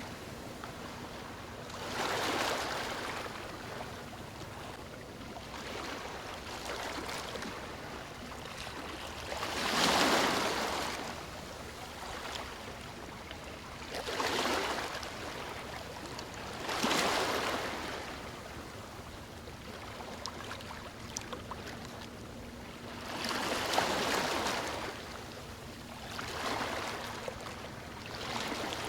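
Sea waves breaking and washing up a beach: surges of surf every few seconds rising and falling over a steady wash, the biggest about ten seconds in.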